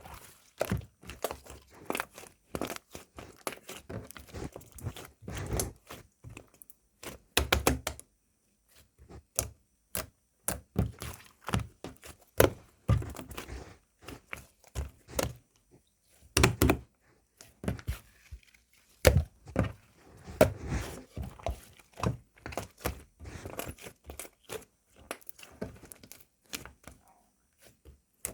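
Slime being squished, poked and folded by hand: a long run of irregular sticky clicks and small pops with soft thuds, broken by short pauses.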